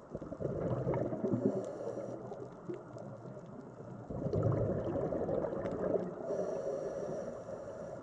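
Water sloshing and gurgling close to the microphone, surging loudly about half a second in and again about four seconds in.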